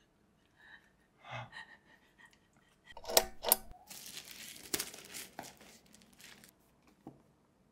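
Thin plastic grocery bag rustling and crinkling as hands pull at its knotted handles to open it. It starts about three seconds in with a couple of sharp crackles, goes into a dense crinkle, and dies away near the end.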